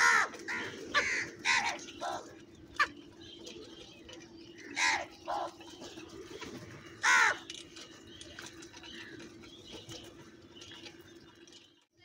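House crows cawing: a run of harsh caws in the first three seconds, two more about five seconds in and a loud one near seven seconds, over a steady low hum.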